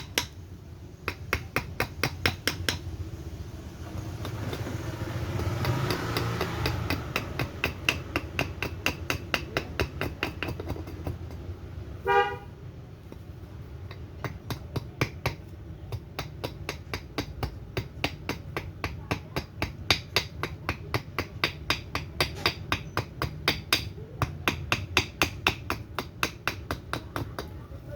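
Quick, light axe strikes chopping a surian wood spoon blank, several a second in long runs with short pauses, roughing out its shape. About 12 seconds in a brief horn-like toot sounds over a steady low rumble.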